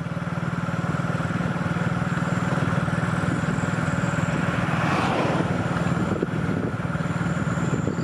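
Motorcycle engine running steadily at cruising speed, with a faint, thin chirring of crickets behind it and a brief swell of hiss about halfway through.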